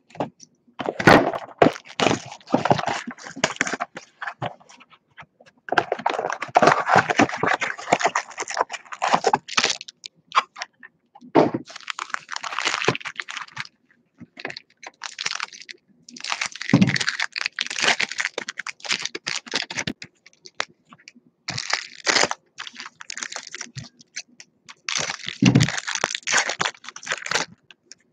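Plastic-foil baseball card pack wrappers and box wrapping crinkling and tearing under the hands. The crackling comes in bursts of a few seconds each, with short pauses between them.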